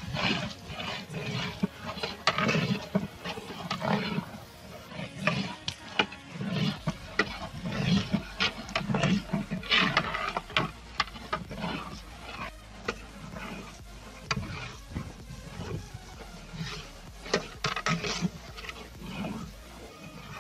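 Sliced onions browning in oil in a large aluminium cooking pot over a wood fire, stirred with a long metal ladle. Irregular scrapes and knocks of the ladle against the pot come over a steady sizzle, with a low stirring thud about once a second.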